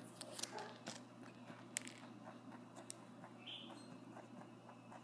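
Rabbit eating a cracker: a few sharp, crisp crunches in the first couple of seconds, then faint quick chewing at about four bites a second.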